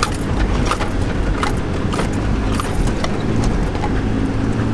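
Mitsubishi Delica 4x4 van climbing a soft sand hill, heard from inside the cab: a steady low rumble of the engine under load, with repeated knocks and rattles as the loaded van bounces over the track.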